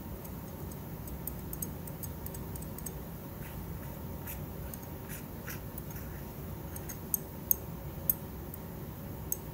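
Metal spatula scraping and tapping against a porcelain Büchner funnel as dried crystals are scraped out: light scratches and small ticks, with a few sharper clicks near the end, over a steady low hum.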